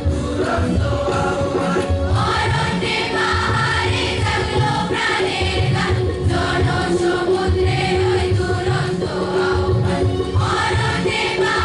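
A song with a group of voices singing in chorus over instrumental backing.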